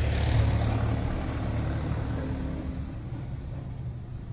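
Low, steady vehicle rumble with a faint hum, growing quieter over the last second or so as the phone moves into the car's cabin.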